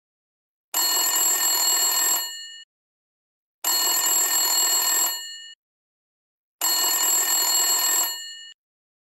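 Telephone ringing three times, about three seconds apart, each ring lasting about a second and a half before a short fade: an outgoing call waiting to be answered.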